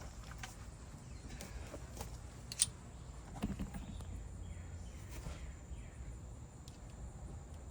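Outdoor background with a steady high insect drone and a low rumble, broken by a few small clicks and knocks, the sharpest about two and a half seconds in.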